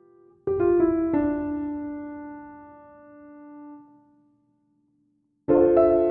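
Background piano music: a few notes struck together about half a second in, ringing and slowly fading, then a short silence before a new phrase begins near the end.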